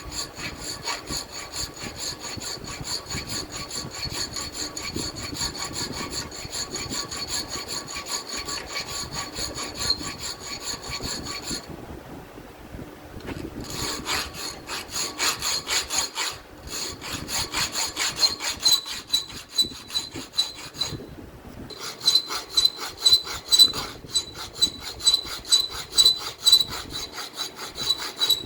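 Rapid back-and-forth hand strokes of an abrasive on a steel knife blade, scraping steadily with brief pauses about twelve, sixteen and twenty-one seconds in.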